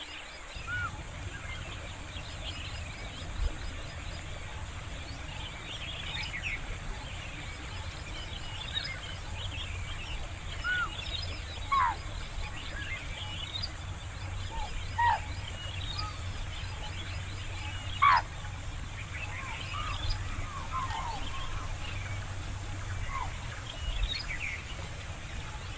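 Wild birds chirping and singing on and off over open grassland, with a few louder calls that slide downward in pitch, the loudest about eighteen seconds in, over a steady low hum.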